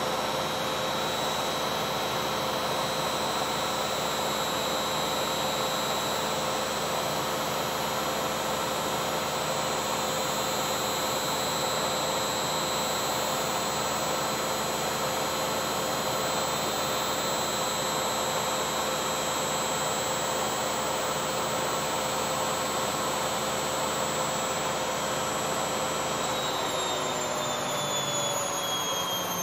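Beko front-loading washing machine on its spin cycle, the drum and motor giving a loud, steady high whine at full spin speed. Near the end the whine begins to fall in pitch as the drum starts to slow down.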